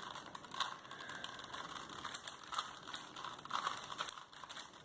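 Plastic Rubik's cubes being turned fast, a rapid, irregular clatter of clicking layers as two cubes, a speed cube and a classic cube, are solved at once.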